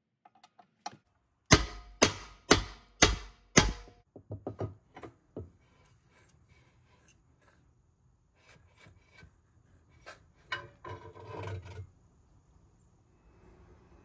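Five hard hammer blows on metal, about two a second, at the jet pump of a 1996 Yamaha Waverunner III, followed by a few lighter knocks. Later come scattered clicks and a short scrape of metal parts being worked loose near the end.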